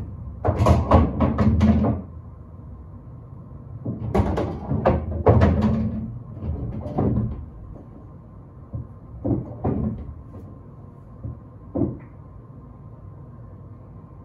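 Pool balls and table: a quick run of clacks and heavy thuds as the balls hit the cushions and drop into the pockets and are handled, a second cluster a few seconds later, then a few scattered single knocks, each fainter.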